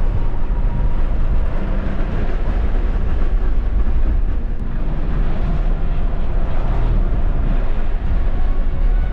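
Steady road and wind noise inside the cabin of a Tesla Model 3 driven at track speed, a dense rumble strongest in the low end with no engine note, as the car is electric.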